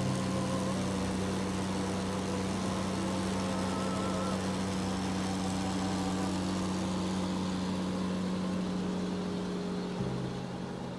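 A car driving, its engine and road noise heard from inside the cabin, with a steady hum throughout.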